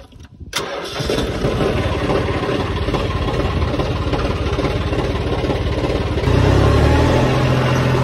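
John Deere 5310 tractor's three-cylinder diesel engine started with the key, catching about half a second in and then running steadily. About six seconds in its note firms up and grows a little louder.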